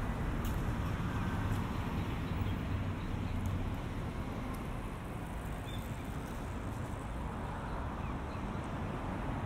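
City street ambience: a steady wash of traffic noise, with a low engine hum that is stronger for the first few seconds.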